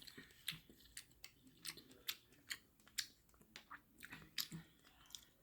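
Wet mouth sounds of someone eating soup noodles: sharp lip smacks as they chew, coming irregularly about two or three times a second.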